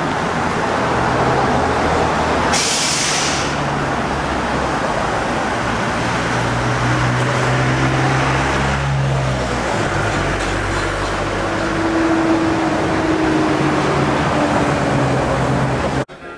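Road traffic: heavy vehicle engines running close by, with a short hiss about two and a half seconds in. The sound cuts off suddenly near the end.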